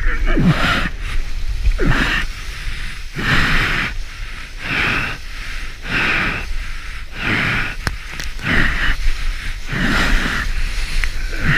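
Surfboard paddling: arm strokes splashing through the water in a steady rhythm, about one stroke every second and a half, over a low rumble of water and wind on the microphone.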